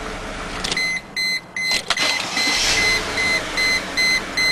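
Car engine running in the cabin, then from under a second in a steady electronic warning chime beeping about twice a second, with a sharp click about two seconds in.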